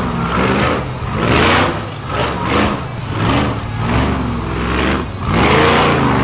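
Rock bouncer's engine revving hard in repeated short bursts, its pitch rising and falling about once a second, with the longest and loudest rev near the end, as the buggy climbs a rocky hill.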